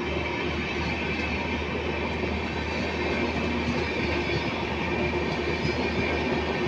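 LHB coaches of an express train rolling past close by: a steady rumble of wheels on rail, with a steady high whine over it.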